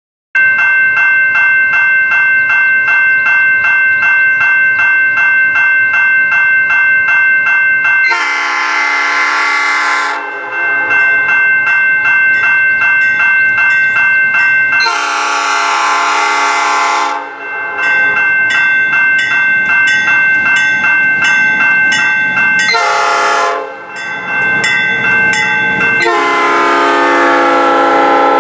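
The CN 1501 self-propelled track geometry car sounding its horn in four blasts, long, long, short, long: the grade-crossing signal. Between the blasts a crossing bell rings steadily with a fast even dinging.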